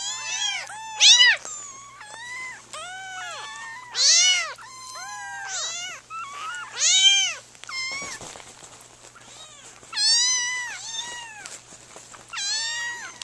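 Kittens meowing over and over with high, thin cries, sometimes two at once. The loudest cries come about every three seconds.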